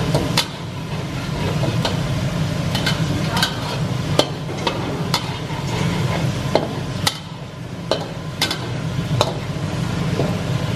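Minced garlic sizzling in oil that is only just heating in a steel wok, stirred with a metal wok spatula that scrapes and clicks against the pan at irregular moments. A steady low hum runs underneath.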